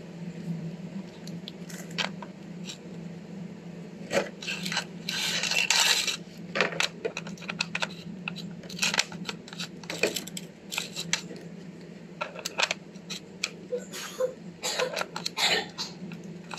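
Hard plastic clicking, knocking and rattling as Baofeng handheld radios and a plastic packaging tray are handled, with a burst of crinkly rustling about five seconds in. A steady low hum runs underneath.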